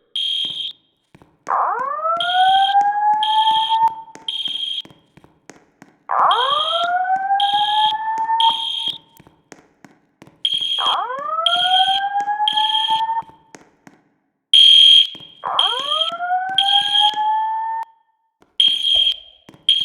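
Voice-evacuation fire alarm system sounding its slow whoop tone: four rising sweeps, each about two and a half seconds long, about every four to five seconds. Over it runs a high-pitched beeping in sets of three.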